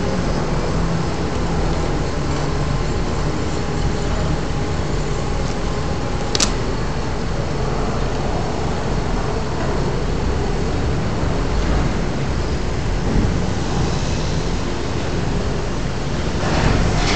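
Steady, loud mechanical drone of heavy machinery among stacked shipping containers, with a single sharp click about six seconds in and a short rush of hiss near the end.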